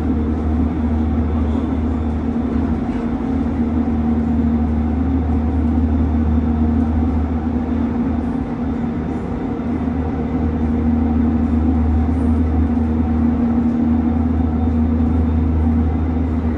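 Gyeonggang Line commuter electric multiple unit heard from inside the passenger car at speed: a steady low rumble of wheels on the track with a steady hum over it.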